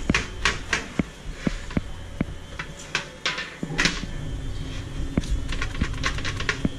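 Raw whole chicken being patted dry with paper towels on a wire rack: irregular light knocks and clicks as the bird and rack are handled, with short rustles of paper towel.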